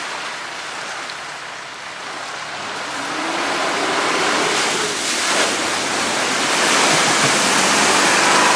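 Steady rushing water, growing louder through the second half, with a vehicle engine faintly beneath it.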